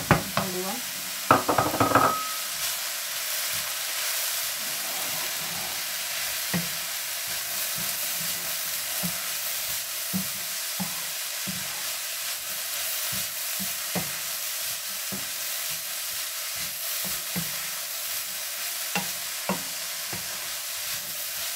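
Leeks, grated carrot and beans sizzling in oil in a frying pan, a steady hiss, while a wooden spatula stirs through them with irregular knocks and scrapes against the pan. About a second in there is a brief clatter as shredded boiled chicken is tipped into the pan.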